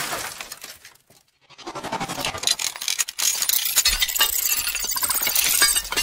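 Sound effect of glass shattering: a crash dies away in the first second, then after a short gap a dense clatter of breaking, tinkling glass builds up, with a low rumble under it from about four seconds in.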